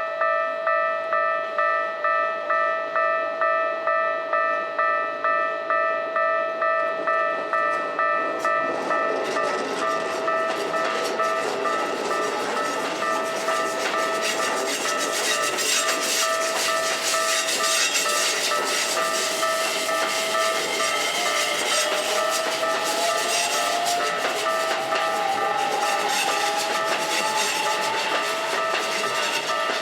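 Level crossing warning bell ringing about twice a second while a Hokuso 7500-series train passes through the crossing from about eight seconds in, with wheel clatter over the rail joints and a whine rising in pitch. The bell stops near the end.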